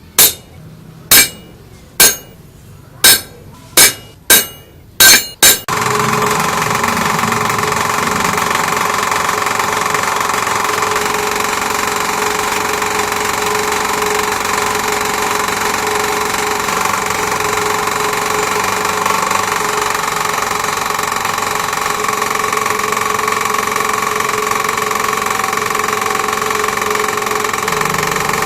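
About eight sharp knocks in quick, uneven succession, then a homemade lathe's motor starts and runs steadily with a constant hum and whine.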